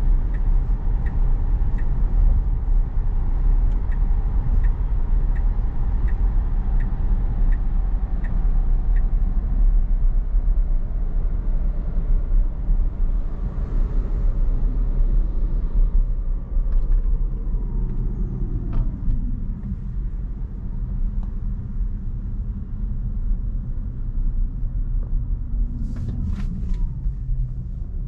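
Tesla cabin noise on the move, a steady low rumble of tyres and road. A turn signal ticks about one and a half times a second for the first nine seconds. Later a whine falls steadily in pitch as the car slows.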